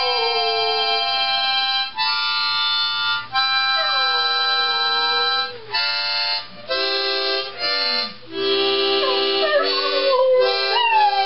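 Harmonica playing chords in phrases with short breaks, while a dog howls along in drawn-out howls that slide down in pitch several times.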